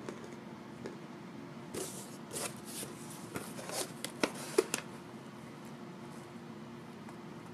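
Packaging being handled: a run of crinkling and rustling crackles lasting about three seconds, ending with a couple of sharper clicks.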